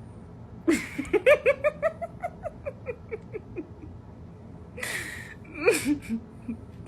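A person laughing hard: a run of about a dozen quick 'ha' pulses that fall in pitch and fade, then a sharp breath in and a short second burst of laughter.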